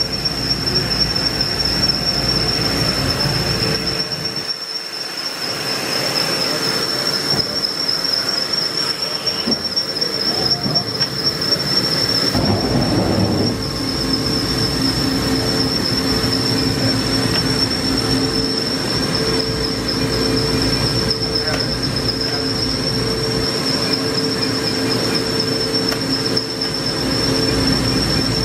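Okuma MILLAC 800VH 5-axis machining center powered up and running: a steady high-pitched whine over a mechanical hum, with a brief louder rush about halfway through.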